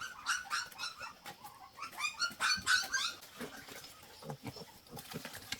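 Newborn puppies whimpering: a rapid run of short high squeaks, thinning out after about three seconds.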